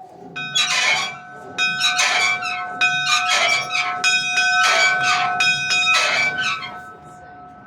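Steam locomotive's bell rung by hand: about ten clapper strikes over some six seconds, each leaving a steady metallic ring that carries on after the strokes stop.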